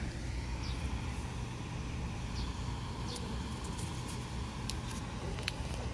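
Steady low rumble of outdoor street ambience with distant road traffic, with a few short high chirps and small sharp clicks over it.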